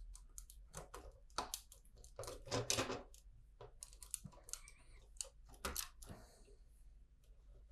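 Plastic LEGO bricks being handled and pressed together: a faint run of light clicks and small clatters, busiest about one to three seconds in and again near six seconds.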